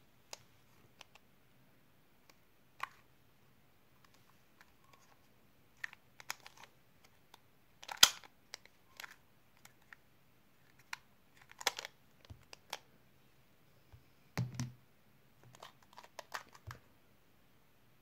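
Plastic 2x2x1 puzzle cube being turned and handled: scattered sharp clicks and clacks of its layers flipping, with the loudest clack about eight seconds in and quick bursts of clicks in the second half.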